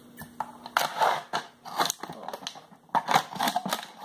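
Scissors cutting a clear plastic PET bottle: a string of irregular snips with the thin plastic crackling, starting about a second in.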